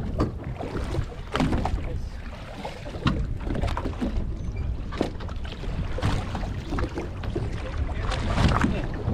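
Wind buffeting the microphone on a small boat at sea, with water sloshing along the hull and a few short, sharp noises scattered through, as a fish is brought up alongside.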